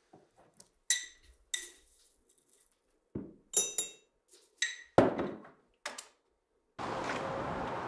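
Glass tea jar and ceramic teapot clinking and knocking on a kitchen worktop as tea is made: several separate clinks, some with a short ringing tone. Near the end a steady rushing noise starts abruptly.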